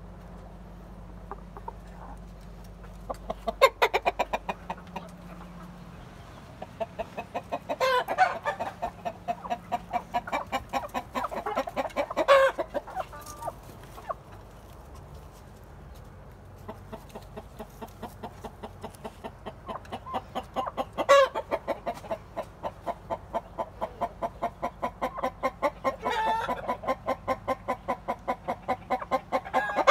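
Hens clucking: fast runs of short, repeated clucks, with a few louder squawks standing out of them.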